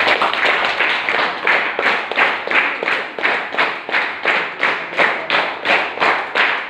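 A group of children clapping hands together in a steady rhythm, about three claps a second.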